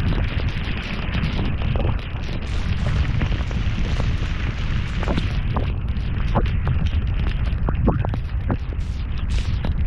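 Heavy rain falling hard, a steady hiss over a low rumble, with scattered sharp taps of drops striking close by.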